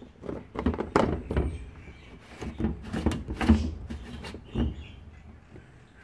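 Hard plastic clicks, knocks and rustling as the screw cap of a plastic laundry-liquid bottle is twisted off and handled, a string of irregular sharp taps with the loudest about a second in and around the middle.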